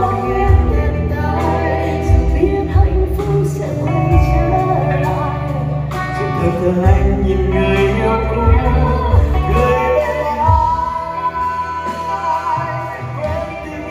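Live pop ballad: a man and a woman singing a duet in Vietnamese over a band with steady bass notes.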